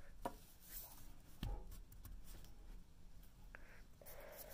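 Quiet handling of a fountain pen as its ink cartridge is pushed in: a few small clicks and knocks over faint rubbing, the clearest about a second and a half in.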